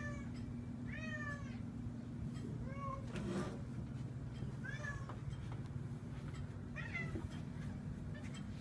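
Domestic cat meowing repeatedly, about five short meows a second or two apart, calling for attention to play.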